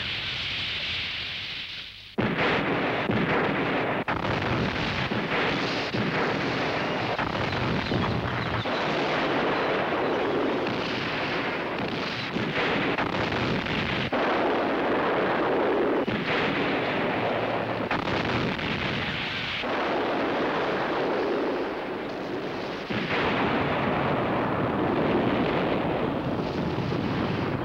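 A long run of explosions: repeated blasts over continuous rumbling, with a fresh loud blast about 2 seconds in, a brief lull a little past the middle, and more blasts resuming near the end.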